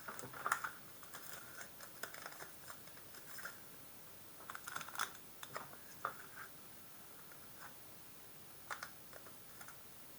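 Pokémon trading cards and booster pack wrappers being handled: soft scattered clicks, scratches and rustles in short bursts, thinning out in the second half.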